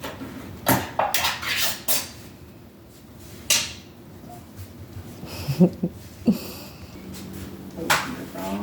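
Dishes and cutlery clinking and knocking in a handful of separate clatters, as cat food is being dished up.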